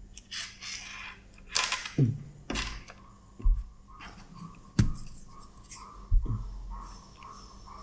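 Handling noise from small plastic earphones and their cable: rubbing and scratching, then about five sharp clicks, each with a low thump, spread a second or so apart.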